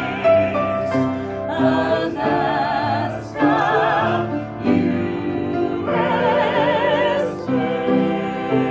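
Live musical-theatre singing: a small cast of men and women singing together in harmony with piano accompaniment, holding long notes with vibrato.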